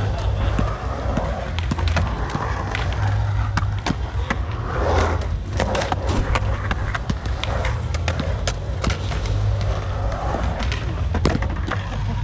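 Skateboard wheels rolling and carving through a concrete pool bowl: a steady low rumble with scattered sharp clicks and knocks, louder about five seconds in as the skater passes close by.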